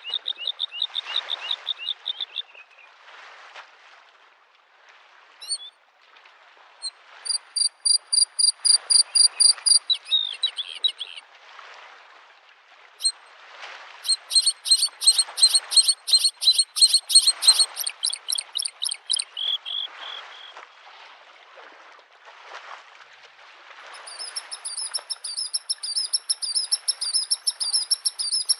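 A bluethroat singing: four phrases of fast-repeated, high, ringing notes, each lasting a few seconds, with pauses between them. Beneath the song, small lake waves wash softly onto the shore.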